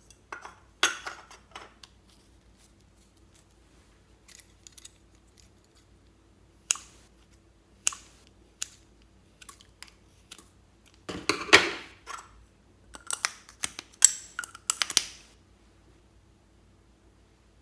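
Sharp clicks and snips from small hard items being handled, with scattered single clicks and then two dense flurries in the second half.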